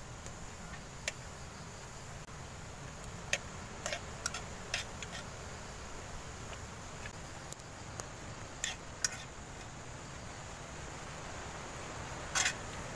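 Metal spoon clinking and scraping against a metal plate while eating, in scattered short clicks, with a slightly longer scrape near the end.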